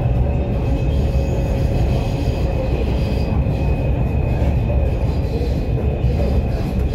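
Lahore Orange Line metro train heard from inside the car while running: a steady, loud rumble of wheels on the rails, with a faint steady high whine running through it.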